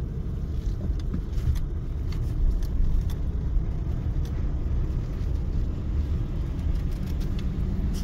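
Steady low rumble of a car's engine and tyres heard from inside the cabin while driving slowly, with a few faint light ticks.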